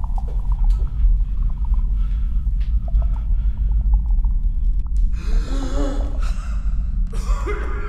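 Deep, steady rumbling drone from the film's sound design, with faint scattered clicks. About five seconds in, and again near the end, a man gasps for breath.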